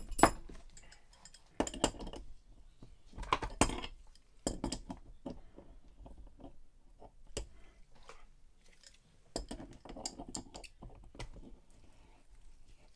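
Adjustable wrench clinking and scraping against the brass service valve of a Fieldpiece SMAN 460 digital manifold as the valve's piston assembly is unscrewed: scattered metal clicks and clinks, the loudest right at the start and a few seconds in.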